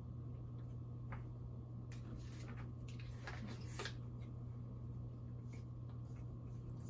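Quiet room with a steady low hum, and a few faint scratches and crinkles, mostly between about two and four seconds in: a marker writing on a handheld answer board and a plastic water bottle handled during a drink.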